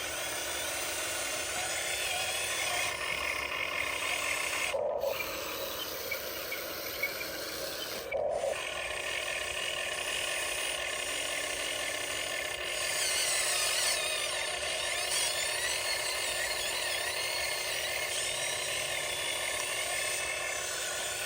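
Huina 1599 RC excavator's small electric motors and gear drives whining and grinding as it digs into hard ground, the whine rising and falling as the controls are worked. The sound cuts out briefly twice, at about 5 and 8 seconds in.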